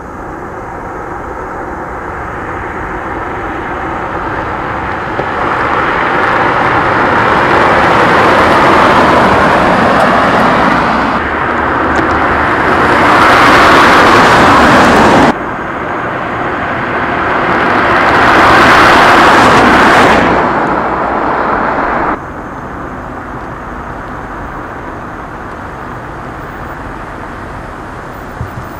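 Cars driving past at speed on a test track: engine and tyre noise swelling as they approach and pass. The sound cuts off abruptly three times between edited takes, then settles to a steadier, quieter running sound.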